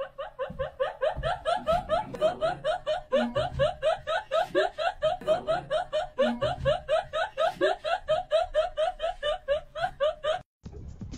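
High-pitched giggling laughter, an even run of short 'hee' notes about five a second that keeps going for about ten seconds and stops abruptly shortly before the end.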